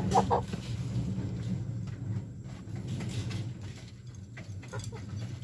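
Village chickens giving a few short calls, a cluster right at the start and fainter ones later. A steady low hum runs underneath and slowly fades.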